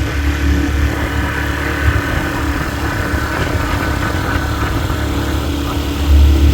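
Small outboard motor running steadily at low speed, with gusting wind rumbling on the microphone.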